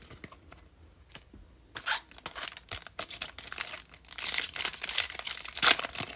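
The wrapper of a baseball card pack being torn open and crinkled, in irregular crackling bursts that start after a short pause and grow louder toward the end.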